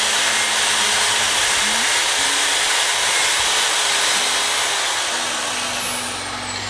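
Corded electric drill running at speed, spinning an engine valve by its stem while a Scotch-Brite abrasive pad rubs against the stem to polish off irregularities that keep the valve from fitting its guide. About five seconds in, the motor's whine starts to fall as the drill slows down.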